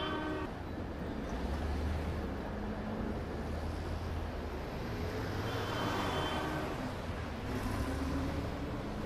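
Steady low rumble of distant city traffic, with a short pitched tone about six seconds in.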